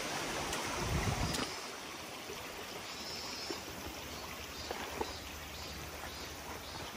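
Shallow mountain stream running over rocks, a steady rush of water. About a second and a half in it drops to a quieter, gentler flow.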